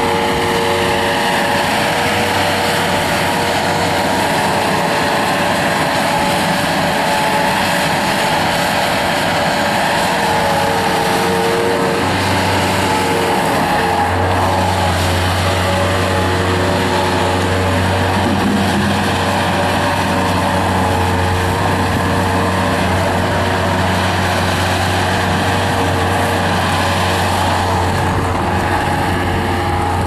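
Bobcat 753 G-Series skid steer loader's Kubota diesel engine running steadily as the machine drives around, with a steady whine over the engine note and the low engine hum growing stronger about halfway through.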